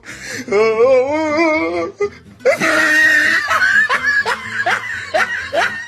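A person laughing hard: a long wavering laugh, then a string of short rising bursts at about two a second.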